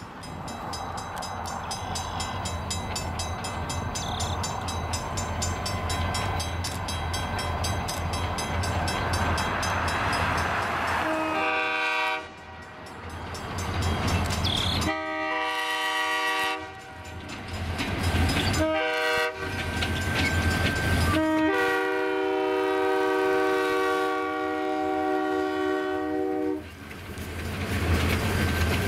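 Diesel freight train with an EMD FP9A in the lead passing at low speed, its engines rumbling. About eleven seconds in, the locomotive's multi-note air horn sounds four times, the last blast held for about five seconds, in the long-long-short-long pattern of a grade-crossing warning.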